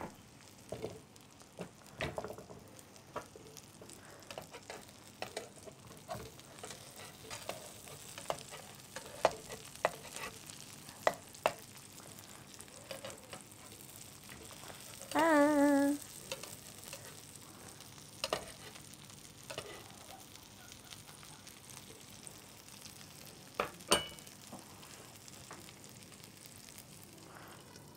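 Okra-and-egg omelette frying in oil in a frying pan with a quiet sizzle, while a spatula taps and scrapes against the pan at irregular moments. About halfway through comes a short wavering hum, the loudest sound.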